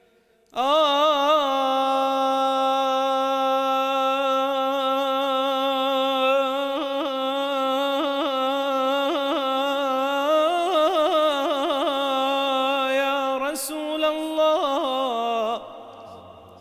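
A singer's unaccompanied melisma in religious praise singing: one long held vocal line of about fifteen seconds, ornamented with fast trills and vibrato, briefly climbing higher past the middle before settling back and breaking off near the end.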